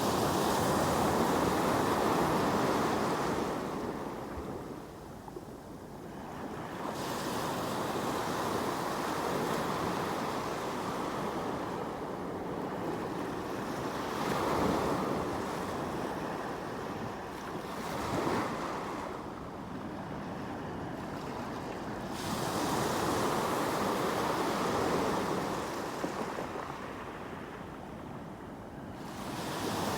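Sea waves breaking and washing on the shore: a rushing surf that swells and fades several times, dipping into quieter lulls between the waves.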